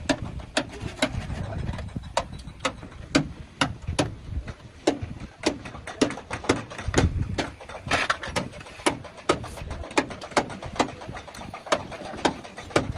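Hammer striking car body sheet metal in a long series of sharp blows, about two or three a second, as in panel beating out dents.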